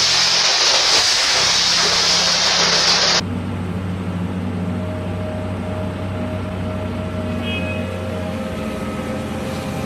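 A loud, even rushing noise for about three seconds, cut off abruptly. Then a diesel engine of heavy machinery, such as an excavator, runs steadily at a constant pitch.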